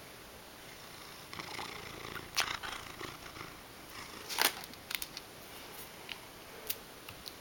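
Ragdoll cat purring as it begs for food, rubbing against the camera. Its fur brushes the microphone, making rustling and sharp clicks from about a second in, loudest twice, at about two and a half and four and a half seconds.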